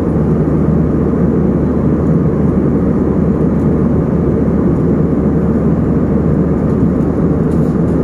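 Steady rushing drone of a jet airliner in flight, engine and airflow noise heard from inside the passenger cabin.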